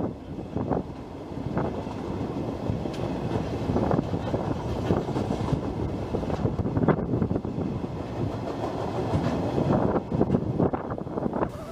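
Loaded freight log wagons rolling past on the track below, steel wheels clacking over rail joints at irregular intervals.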